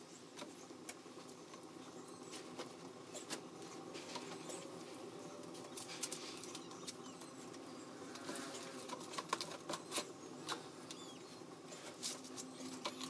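Wood fire burning with scattered sharp crackles and pops over a low steady hum.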